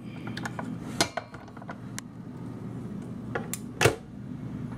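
Ambiano Belgian waffle maker's lid being shut over the batter: a few plastic knocks and clicks as it is handled, the loudest a little before four seconds in as the lid comes down on its base.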